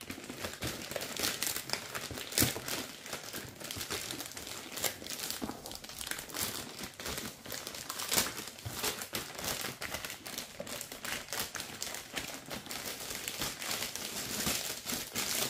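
Shipping packaging being torn open by hand, crinkling and rustling continuously with irregular sharp crackles, the sharpest about two and a half and eight seconds in.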